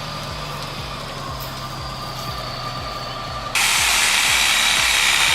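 Heavy vehicle running with an even, repeating low pulse. About three and a half seconds in, the sound cuts abruptly to a louder, steady hissing noise.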